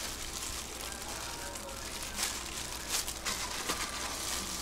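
Hands in thin plastic gloves mixing shredded chicken laab in a stainless steel bowl: a soft, wet squishing and rustling of the plastic gloves. There are a few sharper crinkles around two and three seconds in.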